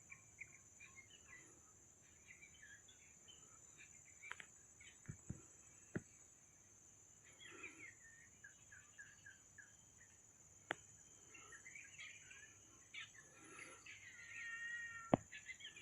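Faint forest ambience: a steady high-pitched insect drone under scattered bird chirps and calls, with a longer bird call near the end. A few sharp clicks stand out.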